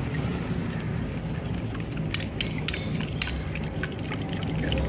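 A spoon stirring a thin yogurt-and-spice marinade in a glass bowl, making a wet, sloshing scrape with a few light clicks.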